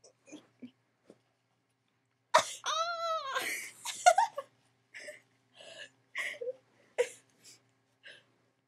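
A young woman's high, wordless vocal sound about two seconds in, its pitch rising and then falling over about a second, followed by a string of short breathy sounds.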